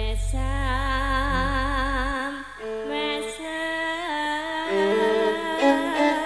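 Female sinden singing a Javanese langgam into a microphone with wide, wavering vibrato, over the held tones of a campursari ensemble. A deep low drone underneath cuts off about two seconds in.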